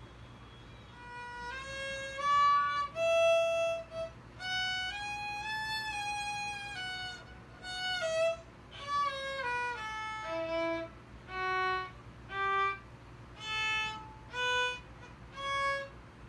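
Violin played slowly by a learner, one bowed note at a time: a short run of notes rising and falling, then separate single notes about one a second.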